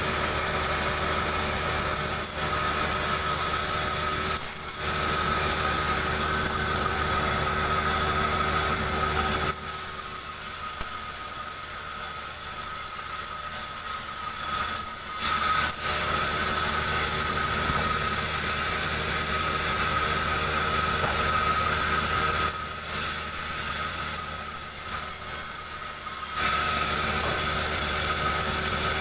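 Chainsaw engine running steadily while cutting a jengkol log lengthwise. About ten seconds in, and again at about twenty-two seconds, the sound drops quieter for several seconds before picking back up.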